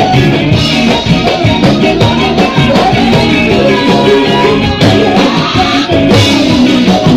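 Live band playing loud, upbeat dance music through a PA, with electric bass, electric guitar and hand percussion keeping a steady beat.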